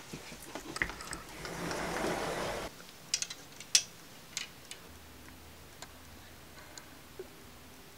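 A mirrored sliding closet door rolls open along its track, building for a couple of seconds and stopping suddenly. Then metal hanger hooks click and scrape along the closet rod as clothes are pushed aside: a quick run of sharp clicks, followed by a few faint ones.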